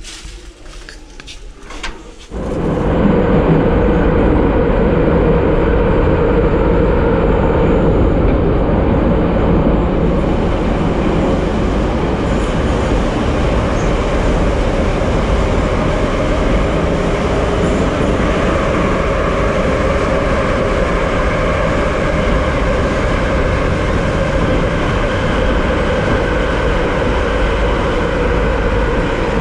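Old-type metro train running through the tunnel, heard from inside a carriage. A loud, steady rumble of wheels and running gear comes in abruptly about two seconds in, after a quieter stretch with a few clicks.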